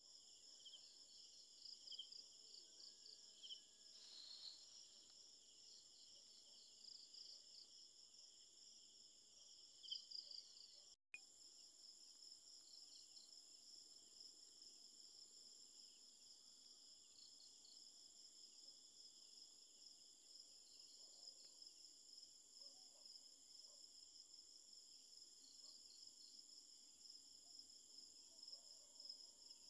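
Faint night chorus of crickets and other insects: a steady high trill with small chirps over it, cutting out for a moment about eleven seconds in.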